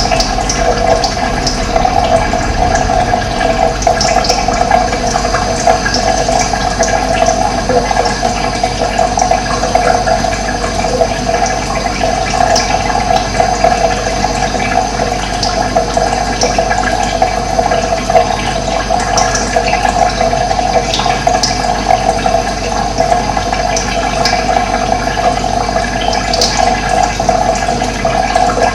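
Running water rushing steadily, with faint, brief bird chirps scattered over it.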